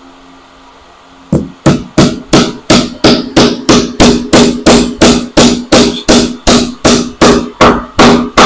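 Claw hammer driving a nail through a board tabletop into its wooden frame. After about a second of quiet comes a fast, even run of some two dozen blows, about four a second, each strike ringing briefly.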